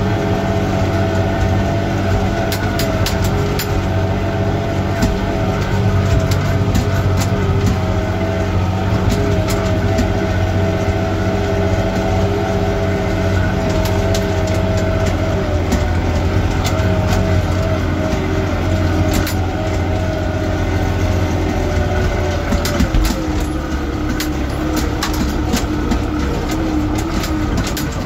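New Holland 65-56 S tractor engine running steadily under load while pulling a harrow, heard from inside the cab, with scattered sharp clicks and rattles over it.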